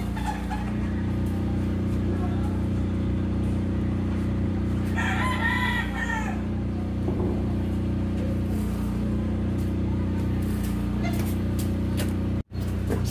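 A rooster crows once, a call about a second long, about five seconds in. It sounds over a steady low drone.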